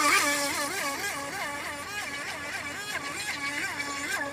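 Electric motor of a SkyTech H101 RC boat whining as it runs, its pitch dipping and recovering two or three times a second.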